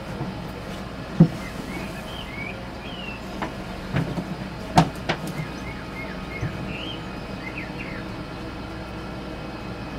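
Steady mechanical hum of a Chinese diesel air heater running after its first start-up, its current draw settled at about two amps. Short high chirps come and go over it, and there are a few sharp knocks about one and five seconds in.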